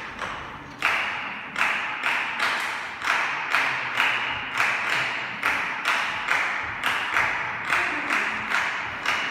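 Small ensemble playing a rhythmic piece of hand percussion: sharp strokes in a steady beat, about two a second.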